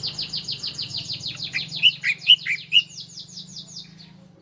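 Ciblek (bar-winged prinia) song: a fast trill of repeated high notes, about seven or eight a second, with a few louder down-slurred notes in the middle, ending about four seconds in. A steady low hum runs underneath.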